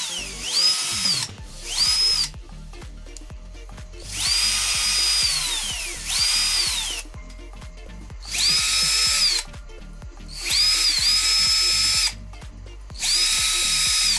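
Panzer lithium-ion cordless drill's motor and gearbox, out of its housing and wired to the trigger switch, run free in short trigger bursts to test the reassembled gearbox. About seven times it spins up to a high whine, holds and winds down; most bursts last under a second, a couple nearly two seconds.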